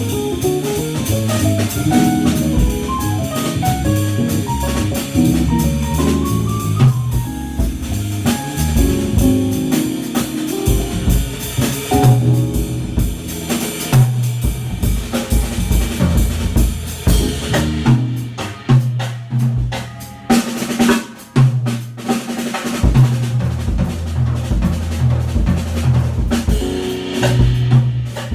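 Instrumental trio of keyboard, bass and drum kit playing. The keyboard plays melodic runs in the first few seconds; after that the bass line and the drums, with rimshots and bass-drum hits, carry most of the sound.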